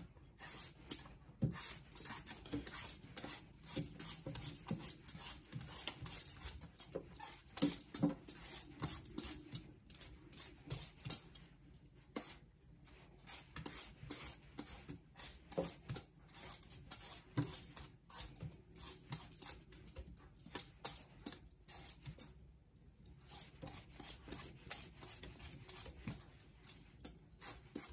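Rapid, short scraping strokes of a firm raw mango being peeled by hand, strips of skin dropping into a stainless steel sink. The strokes come several to the second, pausing briefly twice.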